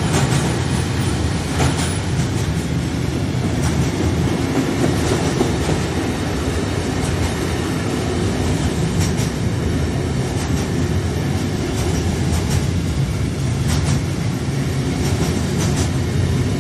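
Intermodal freight train wagons carrying road semi-trailers rolling past at speed: a steady rumble of wheels on rail, with occasional clicks from the wheels.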